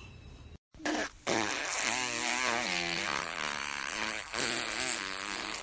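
A baby making a long, wavering buzzing vocal noise, starting about a second in after a short gap.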